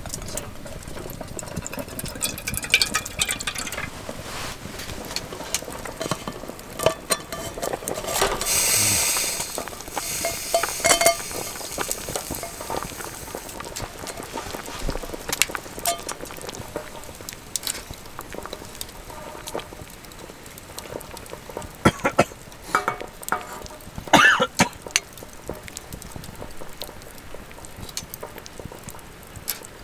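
A pot of nabe hot pot (napa cabbage, leek and enoki) boiling steadily, with scattered clinks of metal tongs and utensils against the steel pot and bowl, clustered about two-thirds of the way through. A louder rushing hiss lasts about two seconds around nine seconds in.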